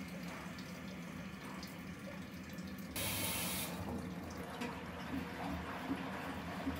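Nortec Primus P6 commercial washing machine partway through a wash, its drum filling with water. A steady low hum runs first; about three seconds in, water rushes in with a sudden loud hiss that eases after under a second, then keeps pouring and splashing.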